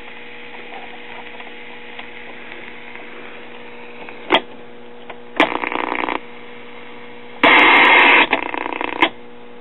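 Zenith Spirit of '76 portable black-and-white TV's speaker giving a steady mains hum, with a click just past four seconds in, then a short burst of static hiss and, near the end, a louder burst of static lasting over a second.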